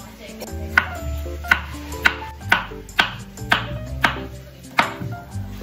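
Kitchen knife chopping a cucumber on a wooden cutting board, sharp chops about two a second, eight in all, with a short pause near the end. Background music with a steady bass plays underneath.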